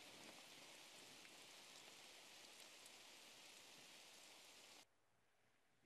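Faint, steady downpour of rain from a film's soundtrack, heard through a video call's screen share, cutting off suddenly near the end.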